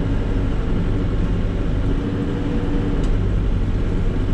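Volvo BL70 backhoe loader's diesel engine running steadily as the machine is driven along, with a faint whine over the hum.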